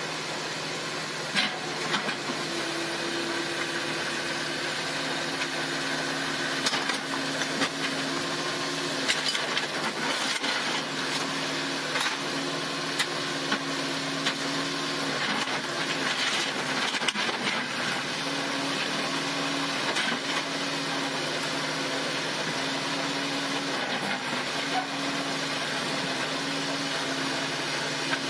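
A mini excavator's diesel engine runs steadily, its drone shifting slightly as the hydraulics work. Scattered sharp clanks and knocks come over it.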